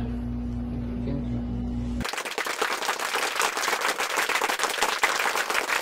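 Applause sound effect, a dense even patter of many hands clapping, cutting in abruptly about two seconds in over the edit to the transition card. Before it there is only a steady low hum.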